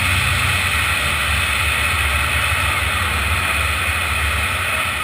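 Steady, loud rushing noise over a deep low rumble, beginning to fade near the end.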